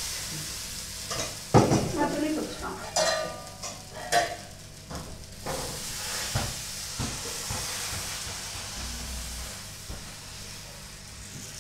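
Appam batter sizzling in a hot appam pan, with several clinks and knocks of the ladle and pan, one ringing briefly about three seconds in.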